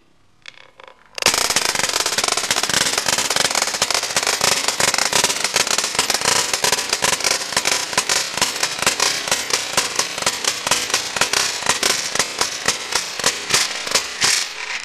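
Spin Master Racing Toothless rubber-band-powered flying dragon toy beating its wings after release: a sudden, fast, loud clatter that starts about a second in. The beats grow further apart toward the end as the wound rubber band runs down, then stop.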